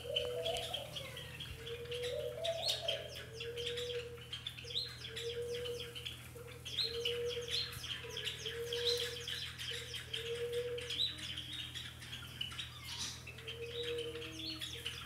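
Birdsong: many small birds chirping, with a low hooting note repeated roughly once a second that pauses briefly near the end.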